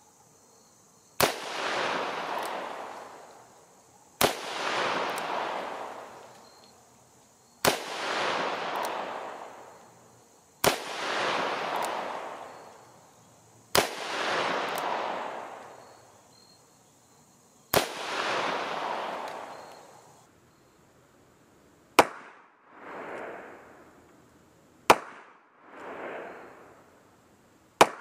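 Taurus Model 66 .357 Magnum revolver fired slowly: six shots about three seconds apart, each a sharp crack followed by a long echo. After a short pause come three more shots with shorter echoes.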